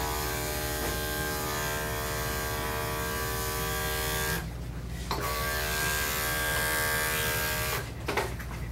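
Corded electric dog clippers running with a steady buzz as they are drawn over the dog's coat to blend a clipped line. The buzz cuts out for under a second about halfway, comes back, and stops near the end, followed by a couple of short clicks.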